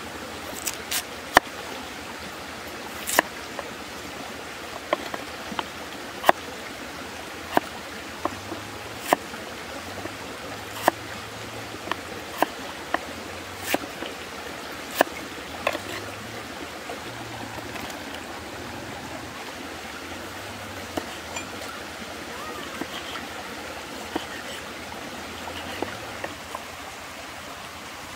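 A cleaver chopping a peeled potato on a wooden chopping block: sharp knocks about every one and a half seconds, growing fewer and fainter after about sixteen seconds. A steady rushing stream runs underneath.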